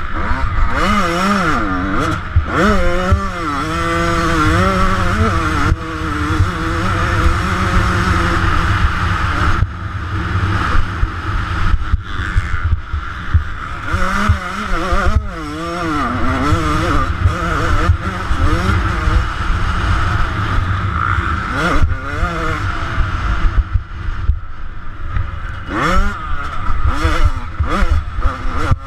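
2009 Yamaha YZ125 single-cylinder two-stroke engine ridden slowly, its revs rising and falling again and again with the throttle, over a heavy low rumble of wind on the helmet-camera microphone.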